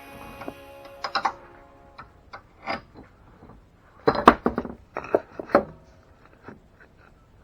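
Irregular wooden knocks and clatter from handling framing lumber and tools, with a loud cluster of knocks about four seconds in and several lighter ones around it. Background music fades out in the first second or so.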